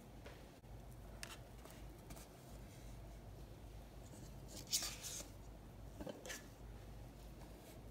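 Faint scraping strokes of an offset spatula spreading buttercream icing over a cake, over a low steady hum. A louder brief rustle comes about five seconds in, and a smaller one about a second later.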